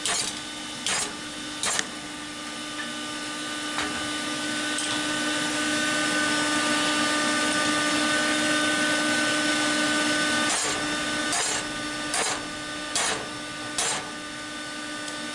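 Hammer blows on hot steel: three strikes in the first two seconds, then a run of five about a second apart near the end, as the tiller-point steel is folded into a hook. A steady hum runs underneath and swells in the middle.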